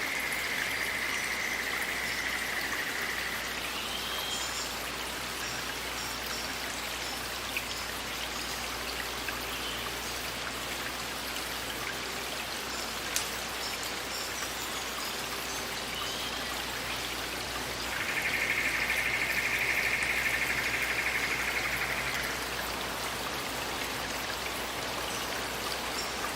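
Steady rush and patter of flowing forest water. A high, steady trill sounds over it at the start and again for about four seconds in the second half.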